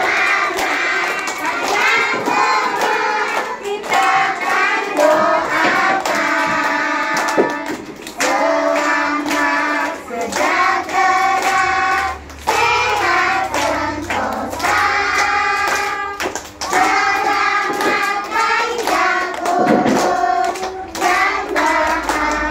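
A group of kindergarten children singing a song together while clapping their hands in time.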